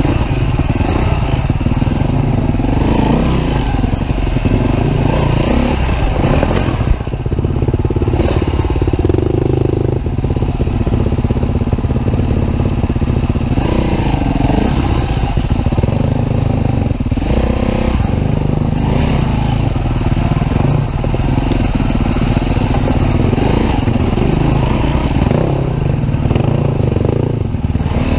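2013 Husqvarna TE310R dirt bike's single-cylinder four-stroke engine running on a slow trail ride, its revs rising and falling repeatedly with the throttle.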